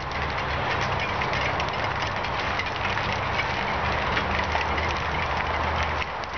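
Bicycle rolling along an asphalt path: a steady rumble with a light rattle from the tyres and frame, easing off about six seconds in.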